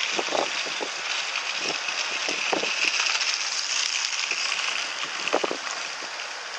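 Wind rushing over the camera's microphone: a steady hiss with a few short, irregular buffets.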